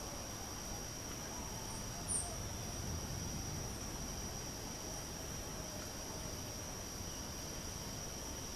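Steady, high-pitched buzz of insects, with one short, very high bird chirp about two seconds in.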